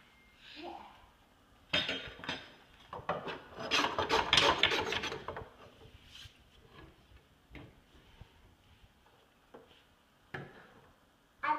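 Rubbing and scraping, loudest in a dense run of rasping strokes about three to five seconds in, followed by a few scattered light knocks and taps.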